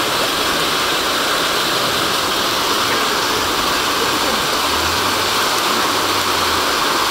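A row of ground firework fountains spraying sparks, a steady rushing hiss.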